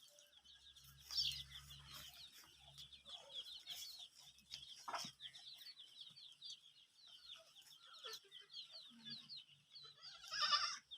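Chickens calling: a steady run of quick, high peeps, several a second, with a louder call about ten seconds in.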